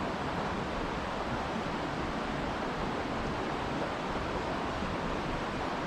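Steady rush of flowing river water, running high after heavy rain.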